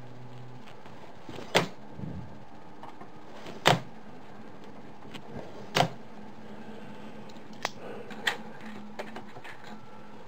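Three loud sharp clicks about two seconds apart, then a few lighter ticks, as a large plastic sheet is worked by hand on a workbench, with a steady low hum underneath.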